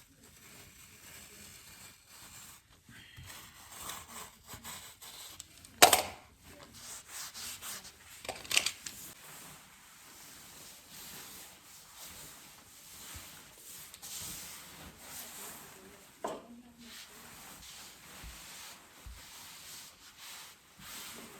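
Glass-fibre wall covering rustling and rubbing against the wall as it is worked and smoothed around an outlet. There are sharp knocks about six seconds in and again about two seconds later, and a softer one past the middle.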